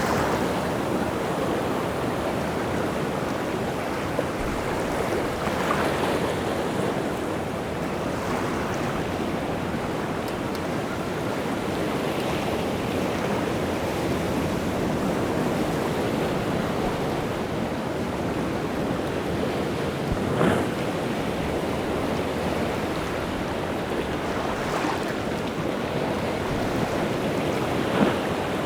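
Rough sea waves breaking and washing onto a rocky shore in a steady rush, with a few louder splashes of breaking surf, the strongest about twenty seconds in and near the end. The surf is churned up by strong wind.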